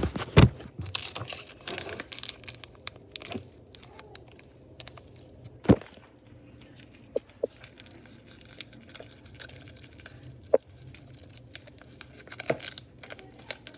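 Instant ramen flavor packet being torn open and crinkled, with scattered sharp clicks and taps, the loudest about half a second in and again near six seconds in.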